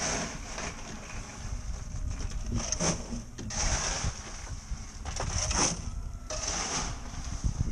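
Water slapping and splashing against the hull of a small drifting dory in short surges, over a low rumble of wind on the microphone.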